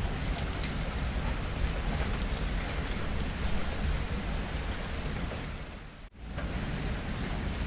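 Steady rain falling, an even hiss with a low rumble underneath. About six seconds in it briefly fades almost to nothing, then comes back.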